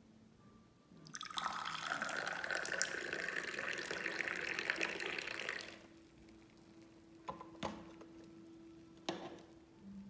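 Moroccan tea poured from a metal teapot into a small tea glass for about four seconds, the pitch rising as the glass fills. A few light clinks follow near the end.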